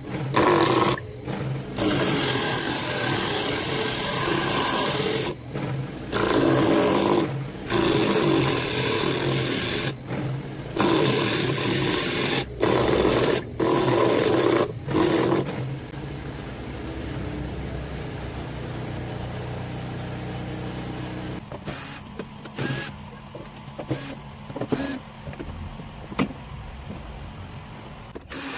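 Homemade disc sander driven by a treadmill massager's motor, grinding a workpiece against the sanding disc in a run of strokes a second to a few seconds long. From about halfway it runs free with a steady hum, with brief light touches near the end.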